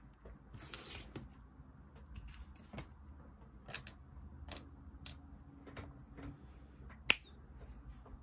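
An AAP-01 airsoft pistol being handled and set down on a desk: a brief rustle, then scattered small clicks and knocks, with one sharper click about seven seconds in.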